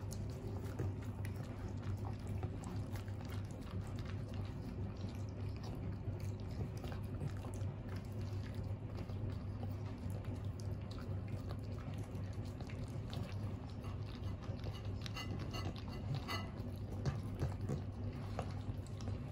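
A Cavalier King Charles spaniel and a Shih Tzu chewing and licking up chopped boiled eggs and ham from plates, with many small wet smacks and clicks. A steady low hum runs underneath.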